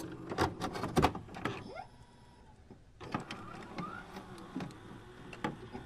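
Glitchy electronic sound effects for an intro animation: a run of sharp digital clicks and crackles, a brief near-silent pause about two seconds in, then more clicks with short rising whines.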